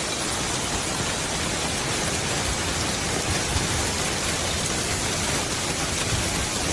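A steady, even hiss of noise at an unchanging level.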